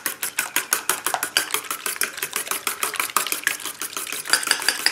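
Fork beating raw eggs in a stainless steel bowl, the tines clicking against the metal in a fast, even rhythm of about eight strokes a second.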